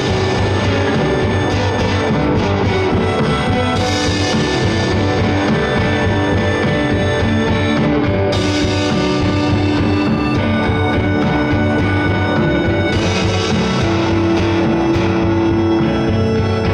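Live rock band playing: electric guitar and drum kit, with cymbal washes swelling in and dropping out every few seconds over a steady low beat.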